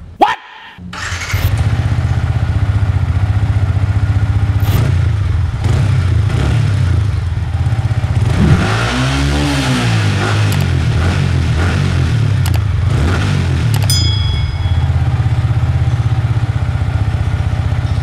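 Yamaha MT-15's 155cc single-cylinder four-stroke engine starting about a second in and settling into a steady idle. Around the middle it gets one throttle blip, with the pitch rising and falling back to idle.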